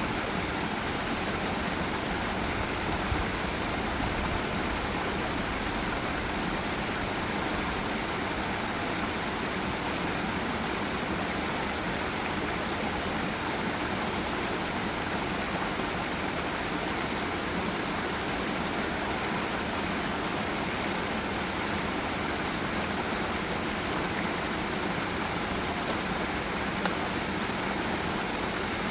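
Forest river water rushing over a waterfall: a steady, even rush of water.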